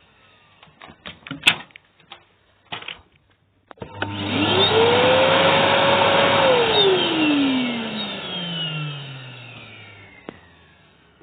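AEG Airmax AMM6216 2100W canister vacuum cleaner switched on: after a few handling clicks, the motor starts with a rising whine, runs briefly at full speed, then is switched off and its whine falls slowly as it spins down.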